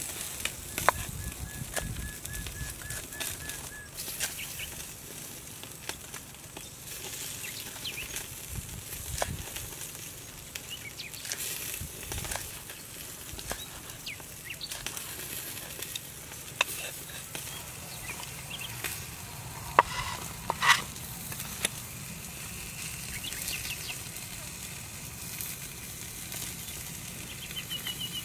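Knife chopping red chilies on a round wooden chopping block, with scattered taps and knocks from handling food and bowls, the sharpest knocks about two-thirds through. A short rapid trill sounds in the background near the start and again at the end.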